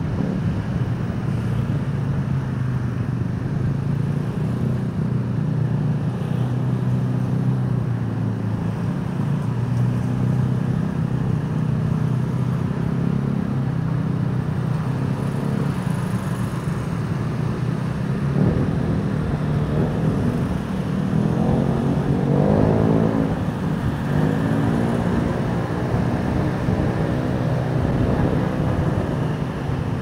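Road traffic heard from a bicycle on a busy city street: motor vehicle engines running steadily close by. A little past the middle, engines rise in pitch as vehicles accelerate past.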